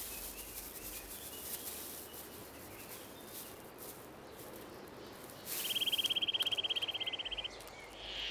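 Faint woodland ambience, then a rapid, high-pitched trill that starts about two-thirds of the way in and lasts about two seconds.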